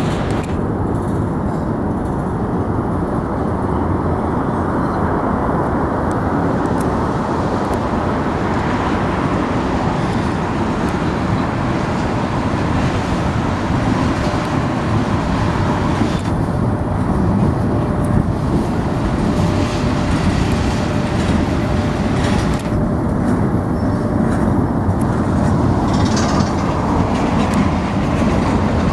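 Union Pacific freight train rolling past, a loud, steady rumble of freight car wheels on the rails with faint clicks.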